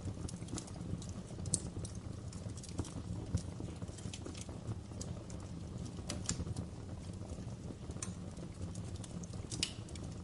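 Wood fire crackling in a fireplace: irregular sharp pops and snaps, a few every second, over a steady low rumble.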